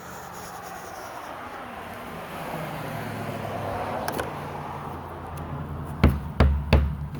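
A road vehicle passing by, its engine and tyre noise swelling to a peak about four seconds in and then easing off. Several loud low thumps come near the end.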